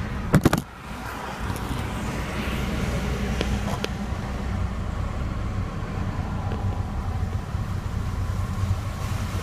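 Car driving along a flooded, rain-soaked road, heard from inside the cabin: a steady low engine and road rumble with a wash of tyre and water noise. About half a second in come a few sharp knocks close to the microphone.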